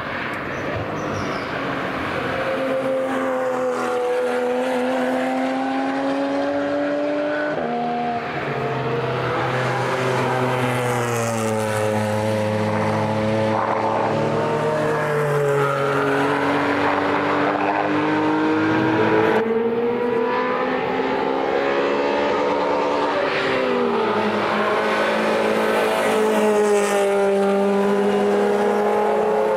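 Circuit race cars, among them a Porsche Cayman GT4, a BMW 3 Series saloon and a Renault Clio, driving through corners one after another. Their engines overlap, rising and falling in pitch as they lift, change gear and accelerate, with abrupt changes in the sound about seven and a half seconds in and again past the middle.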